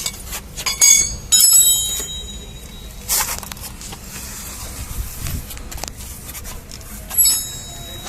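Metal tools or parts clinking against each other and ringing briefly, a few times, with a scrape in between.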